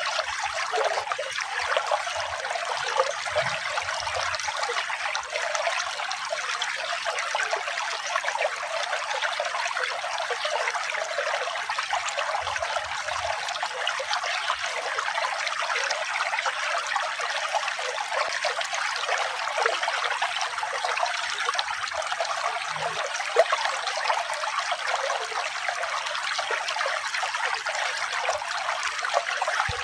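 Running water trickling steadily, as from a small stream, an even rushing with no music over it.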